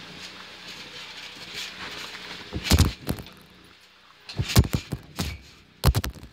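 Several loud thumps and knocks in three clusters, about two and a half seconds in, around four and a half to five seconds, and again near the end, over a low steady background.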